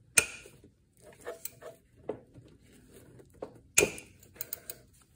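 Metal clinks and knocks of a wrench on the bolts of a timing belt tensioner as it is worked loose by hand. Two sharp knocks stand out, one right at the start and a louder one about four seconds in, with scattered lighter ticks between and after.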